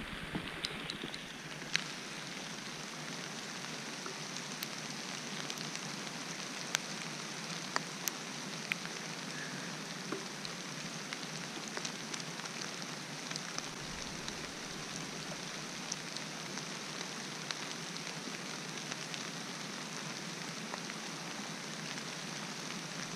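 Steady heavy rain falling, an even hiss with a few sharp ticks of single drops scattered through it.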